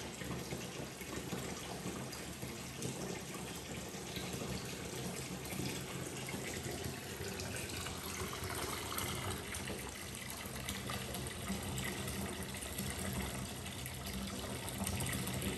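Bath tap running steadily, water pouring into a bathtub that is already partly filled.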